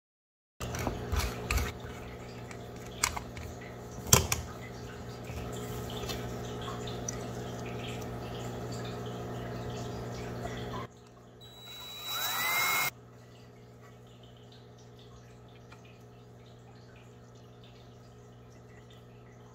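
Cordless drill/driver driving a wood screw into pine, its motor whirring for about a second and a half with a rising pitch. Earlier there is a steady hum with a few sharp knocks and clicks.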